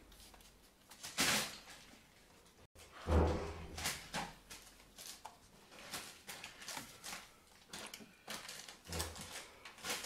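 A kitten's paws on plastic water bottles and their shrink-wrap: irregular crinkles, taps and clicks, with two heavier knocks about one and three seconds in.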